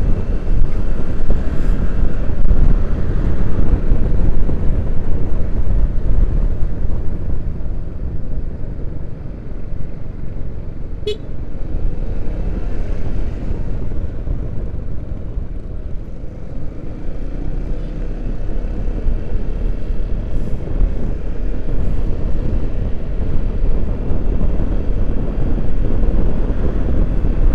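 Heavy wind buffeting on the microphone of a rider on a Yamaha XMAX 250 scooter, from the air off its windscreen striking the helmet. It is louder at first, eases off in the middle and builds again near the end, with one brief sharp high sound about eleven seconds in.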